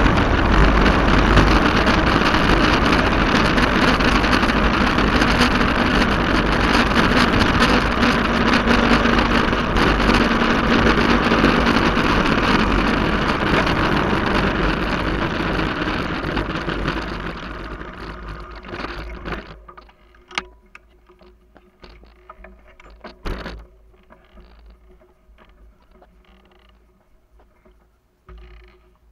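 Wind rushing over the microphone of a bike-mounted camera while riding along a road. The rush dies away about two-thirds of the way through, leaving only faint clicks and rattles.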